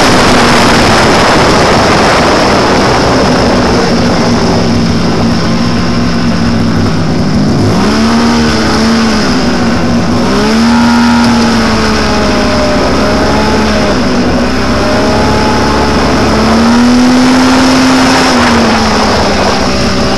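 Snowmobile engine running at speed over a steady rush of noise, its pitch dipping and climbing with the throttle several times midway and again near the end.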